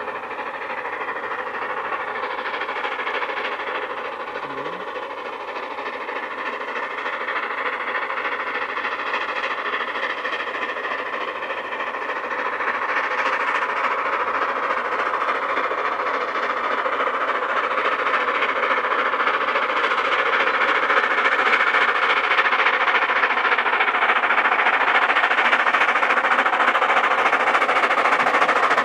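Narrow-gauge steam locomotive hauling a train of coaches, its rapid exhaust beats and running noise growing steadily louder as it approaches.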